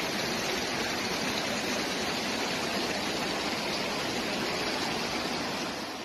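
Muddy floodwater rushing down a street as a steady, even rush, fading out near the end.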